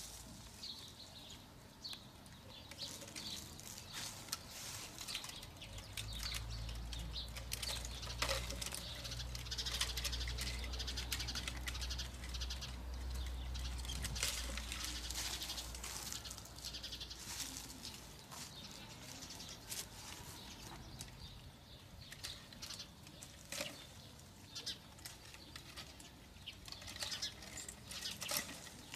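Leafy branches rustling and scraping against a homemade plastic-pipe fruit picker on a pole as it is worked through the tree, with scattered light clicks and knocks as fruit is pulled off and drops into the pipe. A low rumble comes in about six seconds in and fades out around eighteen seconds.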